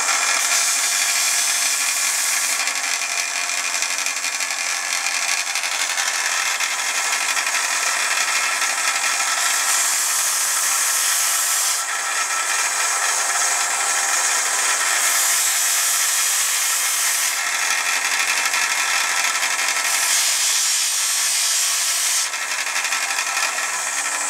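Mac Allister bench disc sander running with a steady motor whine while a glued wooden workpiece is sanded on the spinning disc; the harsh grinding hiss of the wood on the abrasive swells in four passes of a couple of seconds each, starting at the very beginning, about ten seconds in, about fifteen seconds in and about twenty seconds in.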